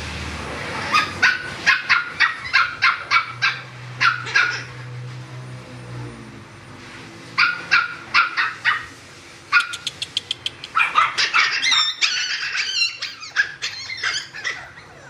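Siberian husky puppies yipping in quick runs of short, high barks, about three a second, with a pause of a couple of seconds in the middle. Near the end the yelps come thicker, mixed with wavering whines.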